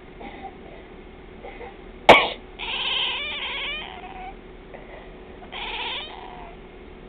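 A person coughs once, sharply, and a domestic cat answers at once with a long meow, then meows again about a second and a half later.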